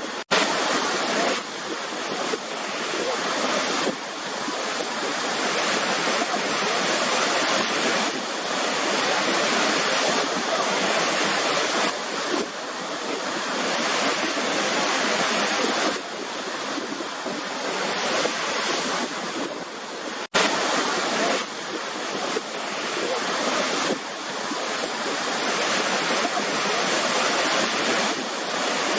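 Waterfall: a steady, dense rush of falling water, with a momentary break about twenty seconds in.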